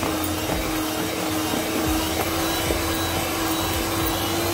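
Electric hand mixer running at a steady pitch, its beaters churning thick chocolate cake batter in a plastic bowl.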